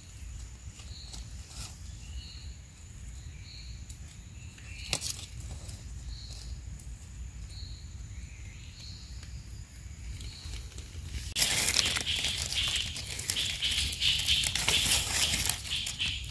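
Dry forest leaf litter rustling and crackling, suddenly loud about eleven seconds in and lasting several seconds. Before that there are only faint, short, high chirps.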